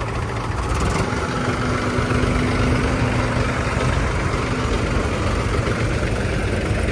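Heavy diesel engine running steadily, a low hum with a faint steady whine over it for a few seconds.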